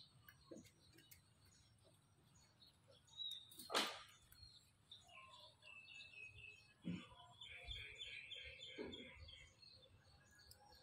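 Faint bird chirping: a run of short, repeated high chirps in the middle, over an otherwise quiet background. A single brief sharp noise about four seconds in is the loudest sound.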